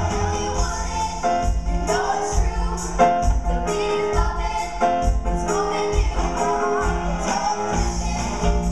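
Female show choir singing an upbeat pop song through microphones, over accompaniment with a steady, heavy bass beat.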